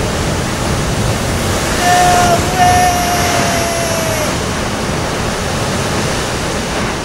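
Steady rushing of surf and breaking waves. About two seconds in, a long held yell, broken once, sags slightly in pitch as it fades out.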